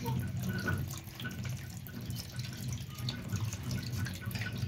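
Coconut water pouring in a thin, steady stream from a hole bored in a green coconut, splashing into the liquid already in a steel bowl.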